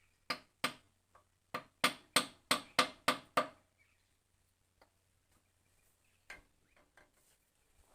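A quick run of about nine sharp knocks on something hard, two fairly spread out and then a steady series of about three a second, stopping after about three and a half seconds; a couple of faint ticks follow.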